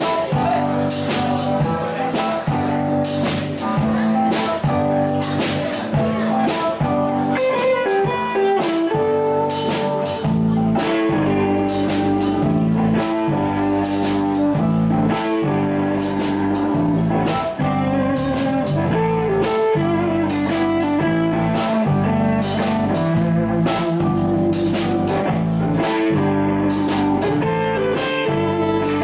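Live band playing: electric guitars over a drum kit keeping a steady beat, with the deep bass filling in about ten seconds in.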